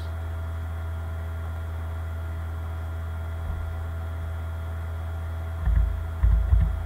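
Steady electrical mains hum on the microphone line, with faint steady whining tones above it. Near the end come a few loud, low thumps.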